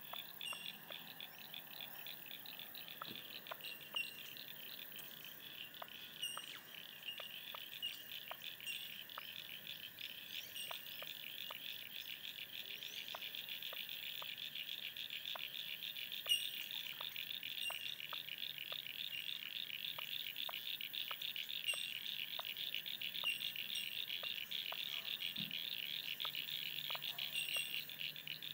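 A continuous, rapid high-pitched trill from an animal, growing louder through the second half, with short chirps and faint ticks now and then.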